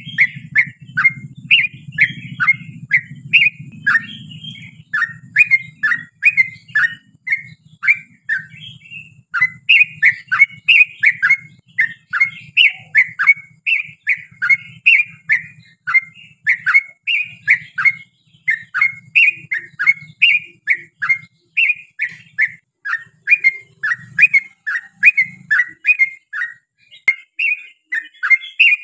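A trucukan (yellow-vented bulbul) singing a long, unbroken run of rapid, chattering whistled notes, about two to three a second, each dropping quickly in pitch. This is the long rapid-fire song ('ropel panjang') that bird keepers play to draw other bulbuls into answering.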